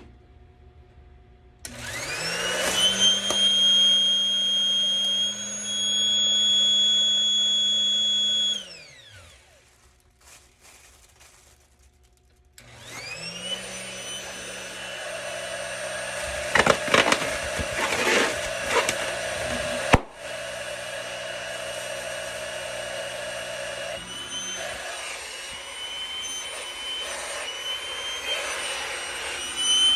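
Small electric air inflator/deflator, a dollar-store unit made for the wrong mains voltage, running off 120 V: its motor whines up to speed about two seconds in, runs for several seconds and winds down. After a short pause it starts again and keeps running, with a few crackles and a sharp click partway through.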